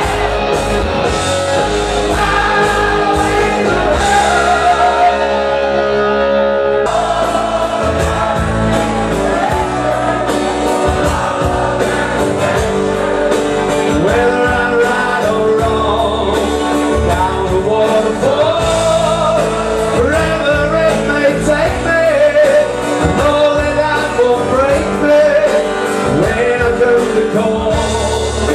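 Live band music: a vocalist singing over electric guitar and a full rhythm section. The band thins out briefly about four seconds in, then comes back in full about three seconds later.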